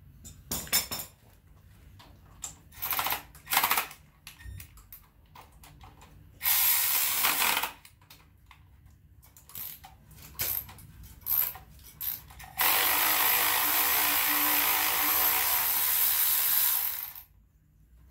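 Hand tools working on an AMC 4.2-litre straight-six engine during teardown: ratchet clicking and short bursts of metal-on-metal clatter. About two-thirds of the way in comes a loud, steady rushing noise that lasts about four and a half seconds, then cuts off.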